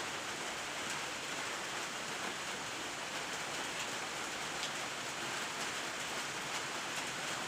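Steady rain: an even hiss of falling rain with a few faint drip ticks.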